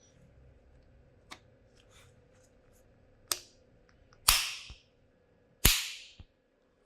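A series of sharp knocks or bangs: two lighter ones, then two much louder strikes about four and five and a half seconds in, each followed by a softer knock.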